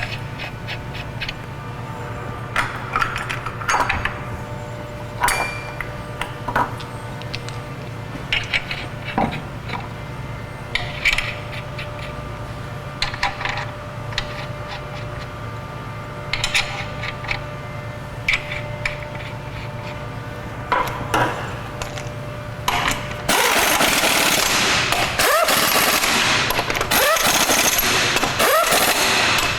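Metal clinks and knocks as the wheel is hung on the hub and lug nuts are handled, then, about three-quarters of the way through, an impact wrench hammering continuously as it runs the lug nuts down.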